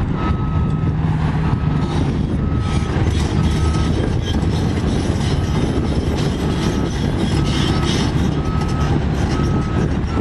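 Heavy diesel construction equipment running, with the steel tracks of a Cat 345CL excavator rattling as it travels. A backup alarm beeps steadily about once a second throughout.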